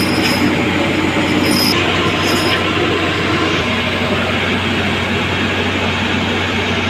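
Heavy diesel machinery running steadily under load: a loud, continuous engine noise with a constant low hum.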